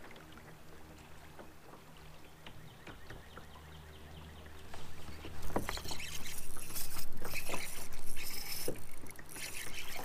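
Kayak on moving river water: water sloshing and splashing close to the hull, with scattered knocks and clicks, getting much louder about halfway through after a quiet stretch with faint ticks.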